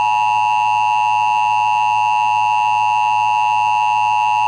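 Emergency Alert System attention signal: a loud, steady electronic alert tone held without a break, sounding ahead of the spoken announcement of a required monthly test.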